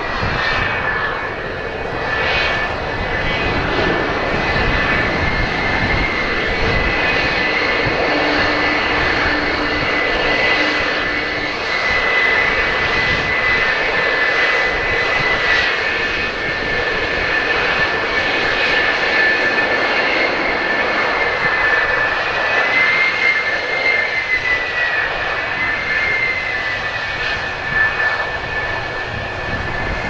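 Twin J79 turbojet engines of an F-4EJ Kai Phantom II running at taxi power as the jet rolls past: a loud, steady rush with a high-pitched whine that wavers slightly in pitch in the second half.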